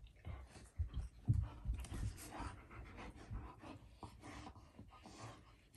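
A golden retriever puppy and a husky puppy play-fighting: heavy dog panting with scuffling and irregular soft bumps of bodies and paws on carpet, the loudest bump a little over a second in.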